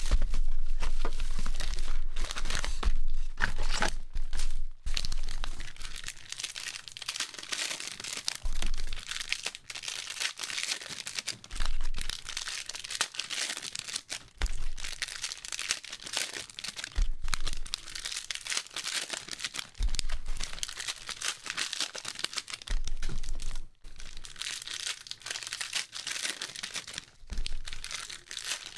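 Crinkling and tearing of packaging as a box of 2018-19 Panini Prizm NBA cards is opened and its wrapped four-card packs are handled. It comes in irregular spells and is loudest in the first few seconds.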